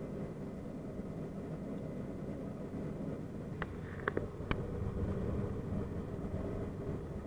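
Steady drone of a turboprop airliner's engines and propellers heard from inside the cabin in flight, an even low hum with a few steady tones. A few short clicks come about halfway through.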